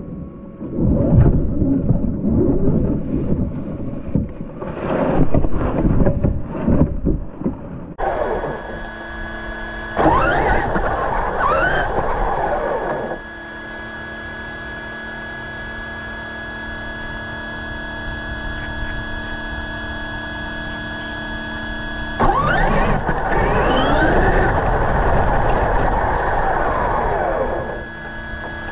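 Brushless electric motor of a large RC monster truck whining, its pitch rising and falling as the truck speeds up and slows. A steady hum lies under it, and the first several seconds hold a rough rumbling noise.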